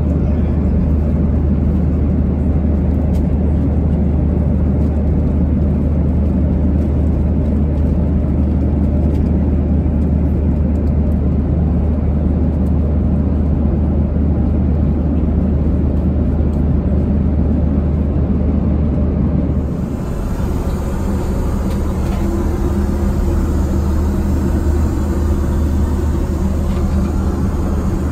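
Steady cabin drone of a Boeing 737-900 in flight: a deep, continuous rumble of engines and airflow. About two-thirds of the way through it dips for a moment and carries on with a faint steady hum added.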